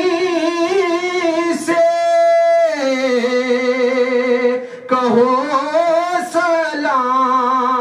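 A man singing a line of an Urdu naat into a microphone in long, wavering, drawn-out phrases, holding one note steady for nearly a second about two seconds in, then dropping lower.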